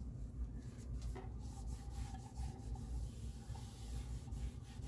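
Faint rubbing as a small white pad is wiped back and forth over the top of a turntable platter.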